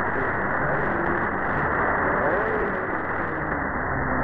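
Weak shortwave AM broadcast heard through an SDR receiver: a faint voice buried in steady static hiss. The audio stops sharply at about 2 kHz, the receiver's narrow filter.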